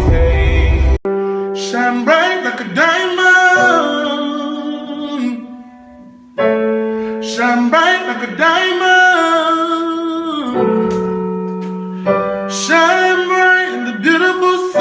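Singing with piano accompaniment, in long held, wavering phrases. The audio cuts abruptly to this song about a second in, and it fades to a brief lull around six seconds before the next phrase comes in.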